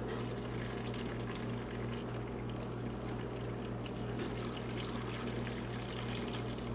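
Unsweetened almond milk pouring in a steady stream from a bottle into a plastic blender jar, splashing onto banana and spinach. A steady low hum runs underneath.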